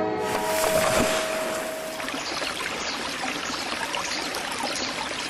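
A train horn sounding its chord and dying away within the first two seconds, while a loud, even rush of flowing water like rapids takes over.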